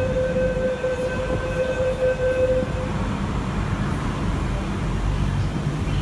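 The door-closing warning tone of an SP1900 electric train. A steady electronic tone sounds for nearly three seconds and then stops, over the low rumble of the train standing at the platform.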